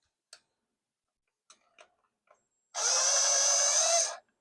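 A handheld power drill runs steadily for about a second and a half, after a few light taps on metal.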